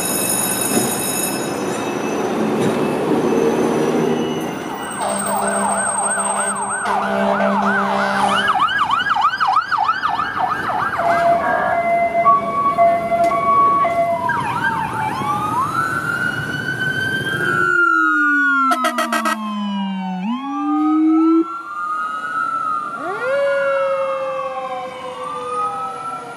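Emergency vehicle sirens one after another: a fast yelp, then a two-note hi-lo, then slower rising and falling wails, with the sound cutting abruptly to another siren about two-thirds of the way through. Engine and street noise fill the first few seconds before the sirens start.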